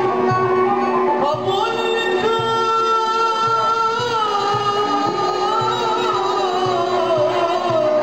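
Turkish Sufi ilahi performed live: a male voice sings a long, ornamented melodic line with slow glides in pitch, accompanied by violin and a steady drum beat.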